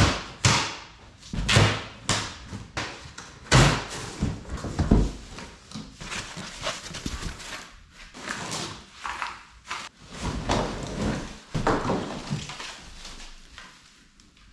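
Unpacking noises: parts and packaging of an electric dirt bike being handled, with repeated knocks and thumps amid scraping and rustling. The loudest thumps fall in the first five seconds.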